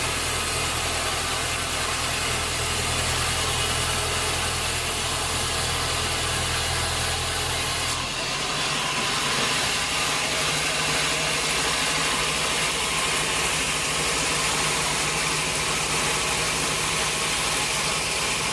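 Sawmill machinery running steadily, a low hum under a hiss. The hum changes abruptly about eight seconds in.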